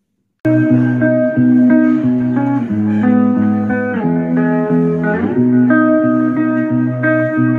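Bluesy guitar music with a sliding guitar note, played through a Soundynamic Triangle Bluetooth speaker with its grill and outer housing removed; it starts suddenly about half a second in.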